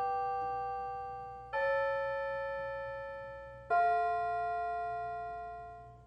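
Piano playing slow sustained chords. A chord is struck about a second and a half in and another near four seconds, each left to ring and fade, and the music cuts off suddenly at the end.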